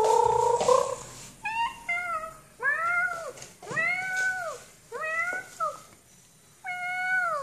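Domestic cat meowing repeatedly: a held call at the start, then about six short meows, each rising and falling in pitch, with brief pauses between them.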